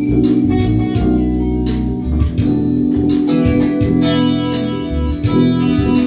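Live jam with an electric bass playing a line of low notes under guitar and sustained, organ-like held chords.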